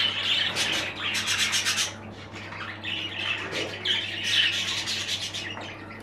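Exhibition budgerigars chattering in quick, uneven bursts of chirps and warbling, over a steady low hum.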